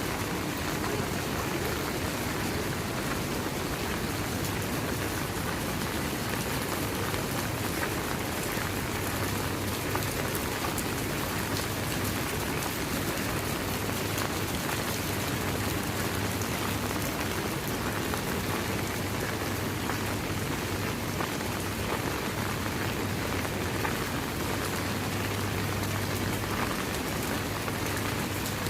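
Steady rain falling, a dense, even hiss of many small drops that holds without a break.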